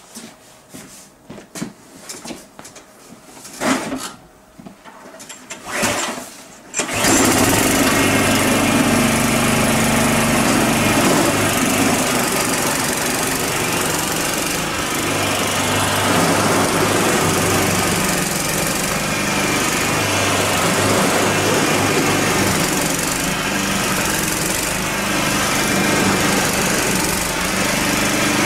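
The small engine of a MARKO tiller with a belt-driven snow-thrower attachment: after a few short knocks, it starts abruptly about seven seconds in. It then runs steadily while the machine throws snow.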